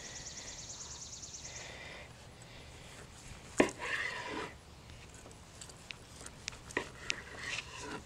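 Long Granton-edge slicing knife cutting through a rack of smoked baby back ribs on a wooden cutting board: one sharp knock of the blade on the board a few seconds in, a brief scrape, then several lighter clicks.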